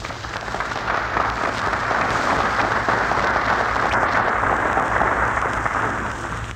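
Studio audience applauding steadily after a musical number on an old 1930s radio broadcast recording, fading a little near the end.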